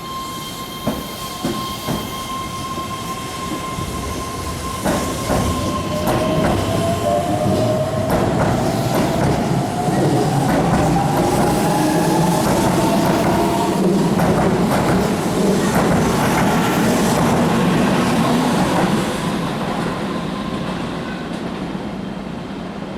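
Keihan electric commuter train pulling out of the station. Its traction motors give a whine that rises in pitch as it accelerates, and its wheels clatter over the rail joints. The noise builds to a peak about halfway through, then eases as the cars roll away.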